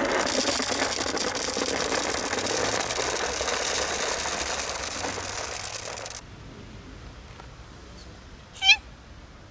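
Dry cat food kibble pouring from a paper bag into a plastic container: a dense rattle of small hard pieces that stops abruptly about six seconds in. Near the end, a cat meows once, short and loud.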